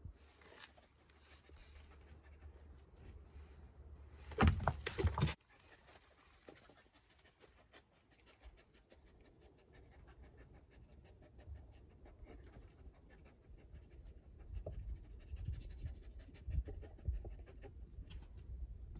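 A young Malinois-type dog panting rapidly and steadily. A brief, louder noise lasting about a second comes a little over four seconds in, and a few low thumps follow near the end.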